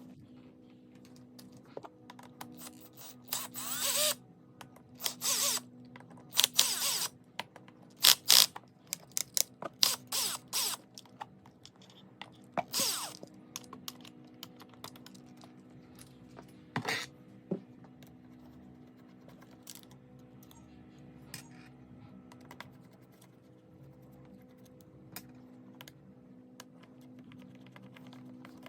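Hands working on steering wheel parts with small tools: a run of short scraping and rattling bursts and clicks, busiest in the first half and sparser later, over a steady low hum.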